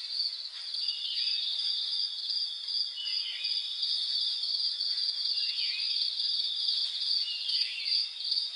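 Insect chorus: a steady, high-pitched pulsing trill, with a short falling chirp that comes four times, about every two seconds.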